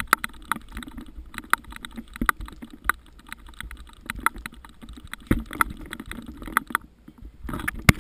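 Irregular light clicks and knocks, a few a second, as the action camera and the ironing board it is fixed to are carried and jostled; they pause briefly near the end.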